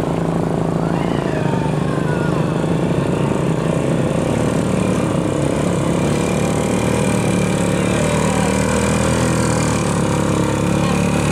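Small motorcycle engine running at low speed as the bike is paddled through deep mud, over a steady engine hum.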